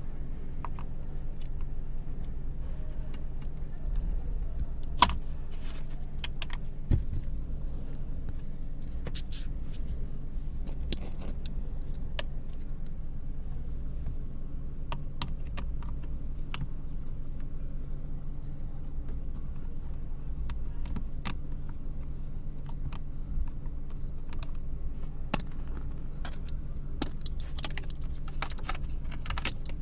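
Car AC blower motor running with a steady low hum, and irregular sharp clicking and rattling over it. This is the abnormal blower noise.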